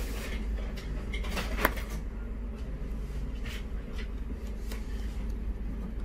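Light clicks and handling noises of a replacement DC charging port and its cable being pressed into place in a laptop's hinge corner, over a steady low hum. The sharpest click comes about a second and a half in.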